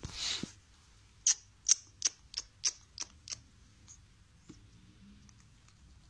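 A short breathy hiss, then a run of seven sharp, high clicks about three a second, trailing off into a few faint ticks.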